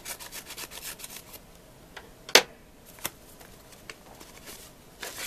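A postal envelope from a parcel being opened by hand: packaging rustling and scraping for about the first second and a half, then one sharp loud snap about two and a half seconds in, and a few fainter clicks after it.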